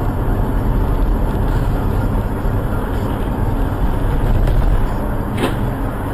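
Steady road noise of a car heard from inside the cabin: engine and tyres running on a wet road, with one short click about five and a half seconds in.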